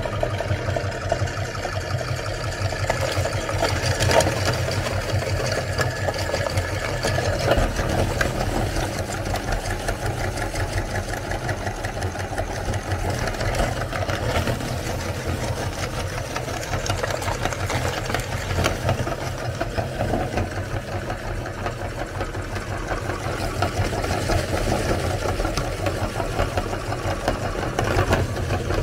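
Motor-driven metal meat grinder running steadily while it crunches hard cookies into crumbs, a continuous dense rattle with a few sharper cracks.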